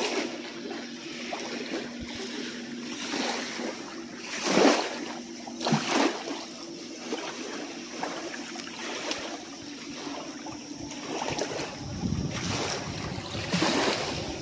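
Wind and lake water lapping, with a faint steady hum underneath and a few louder gusts or wave swells, the strongest about four and a half and six seconds in.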